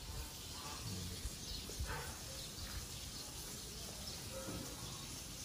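Faint outdoor ambience with a few short distant bird chirps.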